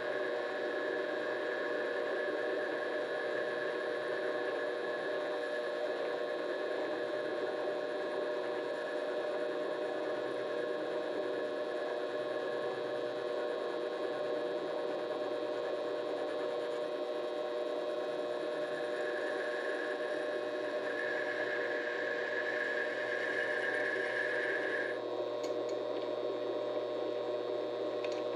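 Vevor 7x12 mini-lathe running steadily with a constant motor and gear whine; the higher whine drops out about three seconds before the end.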